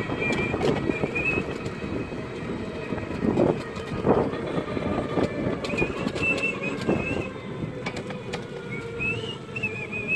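A vehicle jolting along a rough, muddy dirt road: a steady rumble with frequent rattles and knocks from the body over the bumps, and short high squeaks now and then.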